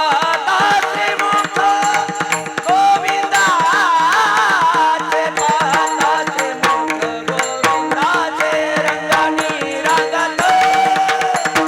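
Varkari kirtan music: a singer's long, ornamented vocal line with wavering melismas over quick mridang drum strokes and a steady held drone.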